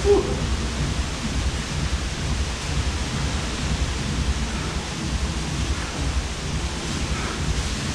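Strong wind buffeting the microphone: a steady, uneven rumble and rush of noise with no speech. A short pitched sound right at the start.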